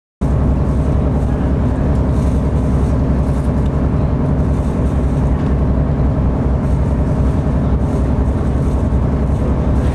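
Cruise boat's engine running steadily under way, a loud low drone with a hiss of water and air over it, heard from inside the cabin.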